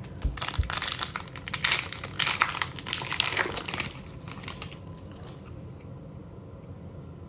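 The crinkly plastic wrapper of an Upper Deck hockey card pack being torn open and crumpled by hand: a dense crackling for about four and a half seconds, then only faint handling as the cards come out.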